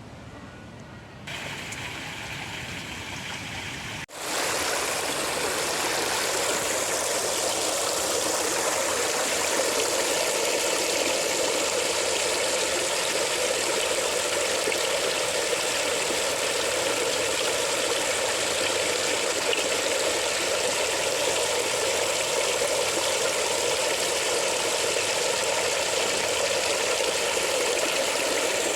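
Steady rush of running water, starting abruptly about four seconds in after a quieter stretch.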